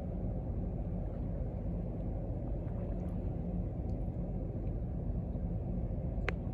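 Steady low rumble of harbour background noise, with one sharp click about six seconds in.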